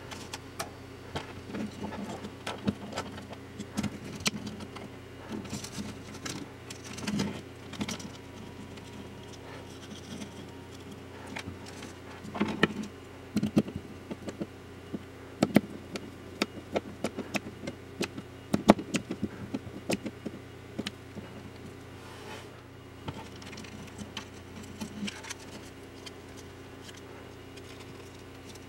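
Hands handling small plastic parts: scattered clicks, taps and light knocks as an LED strip reel, its cable connector and a 3D-printed plastic lamp base are fitted together and a small screw is driven with a screwdriver. A faint steady low hum runs underneath.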